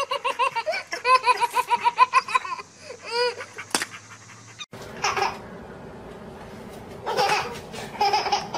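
A toddler belly-laughing in quick, repeated bursts, which stop about three seconds in. After a sudden cut there are a few short, softer voice sounds against quiet room tone.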